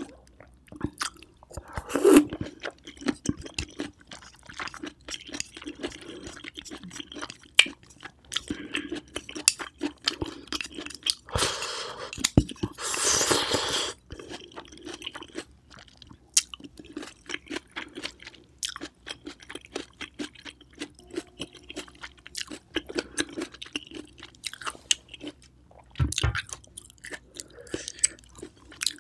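Close-miked chewing of oyster with crunchy toppings: many crisp clicks and wet mouth sounds. A louder hissing suck about twelve to fourteen seconds in as the oyster is slurped from its shell.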